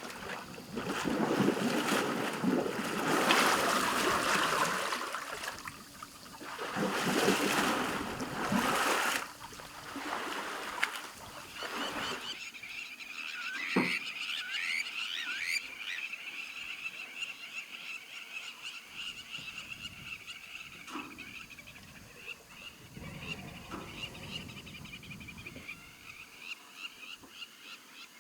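Surges of water splashing for about the first twelve seconds, then a steady chorus of frogs calling in rapid high-pitched pulses, with a few lower single calls.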